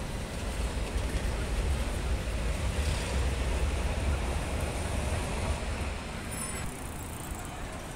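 City street traffic noise: a low rumble from a tram pulling away and passing cars, loudest in the middle and easing near the end.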